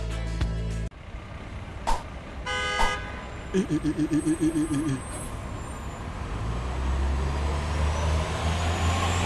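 Advertisement music cuts off about a second in. Cartoon sound effects follow: a horn-like toot, a fast pulsing buzz, then a low drone that swells toward the end.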